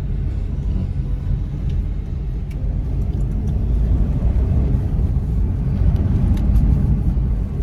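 Steady low rumble of road and engine noise inside a moving car, growing a little louder about halfway through, with a few faint clicks.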